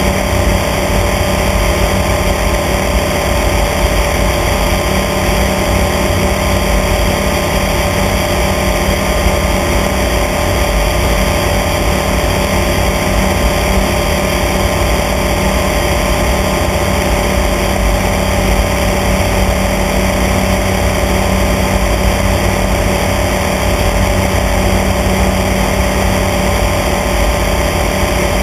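Light aircraft's engine and propeller droning steadily in flight, with a constant rush of air noise.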